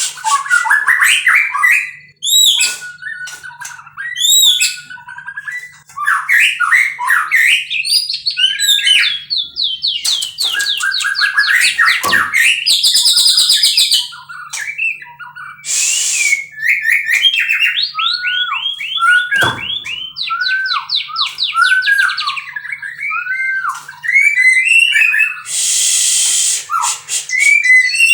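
White-rumped shama singing a loud, varied song of clear whistled phrases, fast repeated notes and rising and falling slurs, broken by a few short, harsh, noisy notes.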